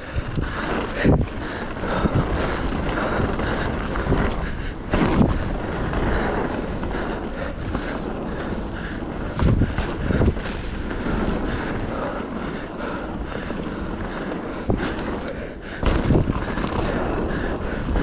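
Mountain bike rolling fast down a dirt trail: wind rushing over the camera microphone over the hiss of tyres on dirt, broken by a handful of sharp knocks and rattles from the bike as it hits bumps.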